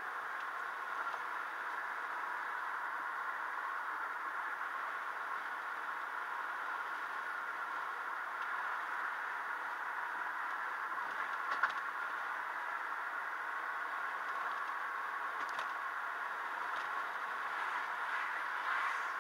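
Steady road and cabin noise of a moving car, picked up by a windshield-mounted dashcam microphone, with a single sharp click about halfway through.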